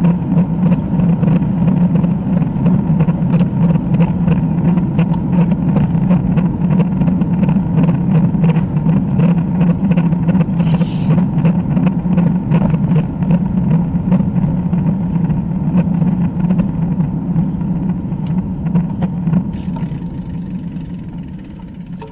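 Steady low rumble of wind buffeting the microphone of a camera on a road bike moving at speed, with a brief hiss about halfway through. The rumble dies down over the last few seconds.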